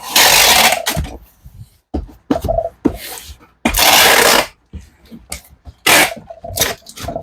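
Packing tape pulled off a roll in several loud strips while sealing a cardboard box, with knocks and scrapes of the box being handled between the pulls.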